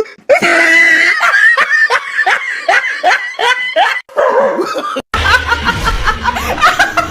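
Laughter in a quick run of short bursts. About five seconds in it cuts to music with a heavy bass.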